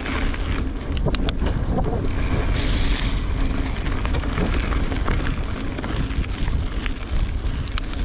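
Wind buffeting the microphone as a gravel bike rolls along a dirt road on 50 mm Goodyear Connector gravel tyres, with the tyres' crunch and a few sharp rattling clicks. A brief hiss comes about two and a half seconds in.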